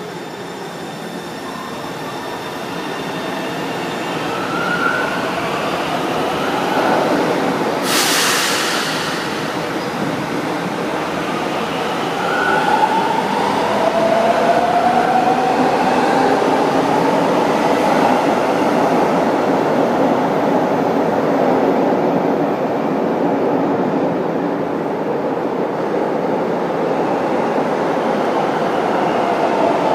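São Paulo Metro train pulling out of an underground station and speeding past. A loud hiss lasting about a second comes about eight seconds in. The rail running noise then grows steadily louder, with wheel squeal and tones sliding in pitch as the cars go by.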